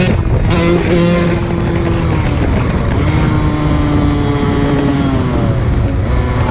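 Two-stroke 125 cc dirt bike engine running at fairly high revs. The pitch shifts a few times, holds steady for a couple of seconds, then drops off a little after five seconds in.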